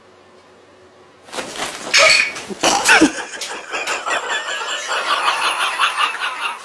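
A sudden loud, harsh outburst about a second in as a house cat is startled by a mounted bobcat and bolts, followed by several seconds of pulsing laughter.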